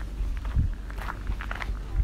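Footsteps of a person walking, a few soft thuds with light clicks, over a steady low rumble.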